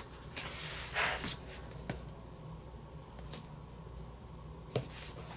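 Planner sticker sheets being handled: a brief papery rustle about a second in, then a few light ticks and taps.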